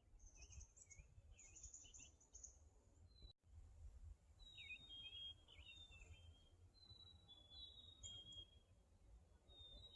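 Faint songbird calls: quick chirps at first, then a run of short, high whistled notes, over a low rumble of wind on the microphone.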